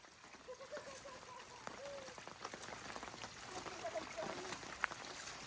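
Faint trickle of rainwater running through a small runoff stream, with scattered small drips and faint distant voices.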